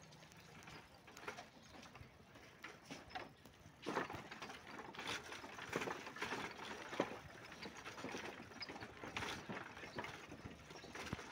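Wooden handcart rolling over interlocking paving blocks, its spoked wheels and loose slats giving off irregular rattling clicks and knocks that grow busier about four seconds in.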